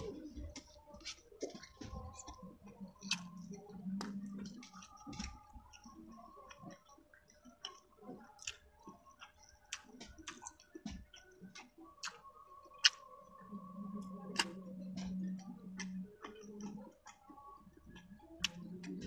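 Close-miked eating: wet chewing with frequent mouth clicks and lip smacks as food is picked up by hand and eaten, with a single sharper click about thirteen seconds in.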